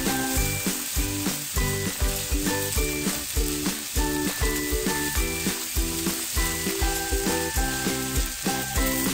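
Mushroom fried rice sizzling in a skillet while a spatula stirs it, under louder background music with a steady beat.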